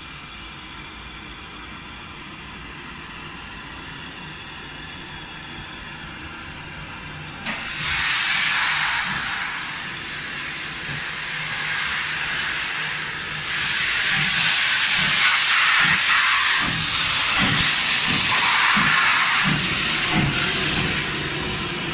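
Steam tank locomotive: a quieter low rumble, then about seven seconds in a loud steam hiss starts suddenly and carries on, easing briefly a couple of times.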